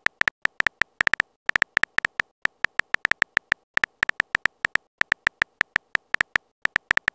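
Phone keyboard key-tap sounds from a texting-story app: a quick, uneven run of short clicks, about six a second with brief pauses, as a message is typed out.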